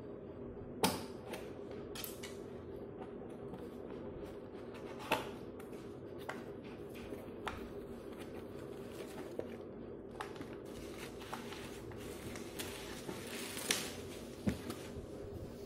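Cardboard box being slit open with a knife and its flap pulled back, then a bubble-wrapped speaker slid out: scattered clicks, scrapes and rustles of cardboard and plastic, the sharpest about a second in and about five seconds in, over a steady low hum.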